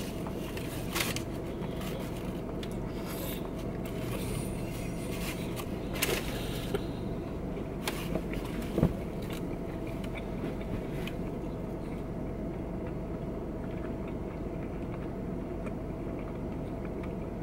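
Steady hum inside a parked car's cabin, with a few brief rustles of a paper sandwich wrapper and chewing sounds of a fried chicken sandwich being eaten.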